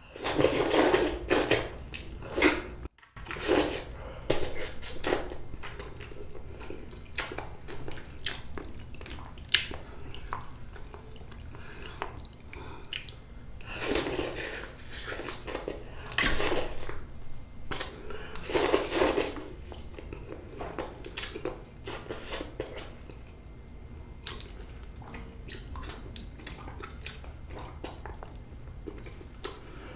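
Jjapaghetti noodles being slurped and chewed close to the microphone. Loud wet slurps come in bouts, the strongest at the very start and again about halfway through, with quieter chewing and lip-smacking clicks between them.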